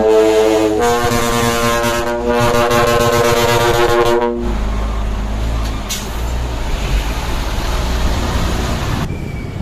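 A dump truck's multi-trumpet air horn blasts one long chord of about four and a half seconds, the mix of tones changing a little about a second in. The truck's diesel engine rumbles low underneath and runs on after the horn stops.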